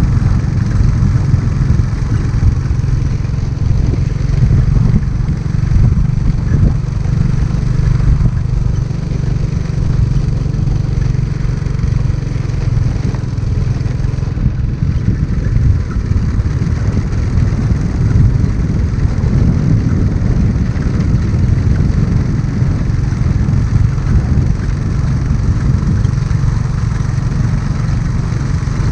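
Motorcycle engine running steadily while riding, with heavy wind rumble on the microphone; the engine note holds steady for about the first dozen seconds, then wavers.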